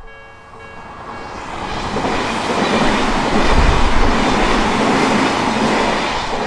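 Odakyu Odawara Line train passing over a level crossing, its rumble and wheel noise swelling about a second in and easing near the end. The crossing bell's steady ringing is heard at the start and again at the end, under the train.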